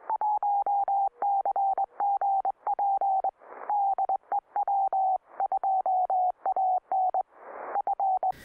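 Morse code sent as a CW radio signal and heard through a receiver, a sample of the 1BCG transmitter on the air: a steady mid-pitched tone keyed on and off in dots and dashes, with a click at each keying. Two short bursts of static hiss break in, about three and a half and seven and a half seconds in.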